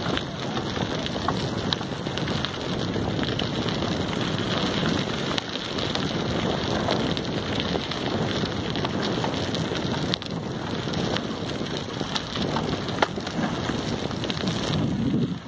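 Wind rushing over the microphone: a steady noise that rises and falls a little, with a few light clicks.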